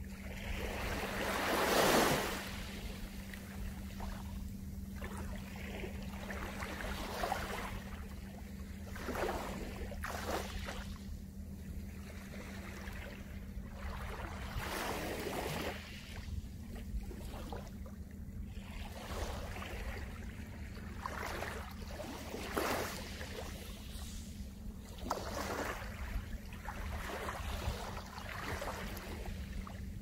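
Small waves of a calm sea lapping and washing over a pebble beach, each wash a soft rush that swells and fades every second or two, the biggest about two seconds in. A steady low hum runs underneath.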